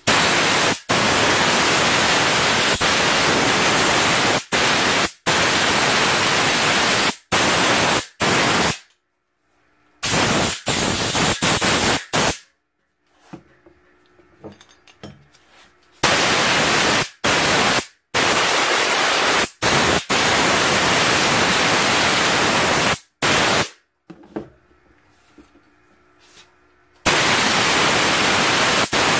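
High-pressure compressed air from an air hose blowing over freshly washed revolver parts: a loud hiss in bursts of up to several seconds, cut by short pauses, drying the water out of the crevices.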